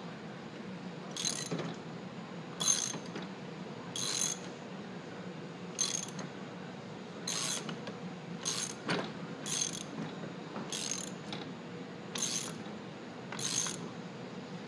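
Ratchet wrench clicking in short bursts, about ten strokes at roughly one every second and a half, as it tightens the retaining nut on a Snapper rider's drive disc assembly. A steady low hum runs underneath.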